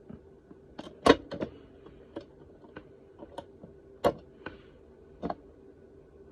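Irregular sharp clicks and taps of small metal tools, tweezers and soldering iron, against a circuit board while a switch is soldered on. There are about a dozen, the loudest about a second in and about four seconds in.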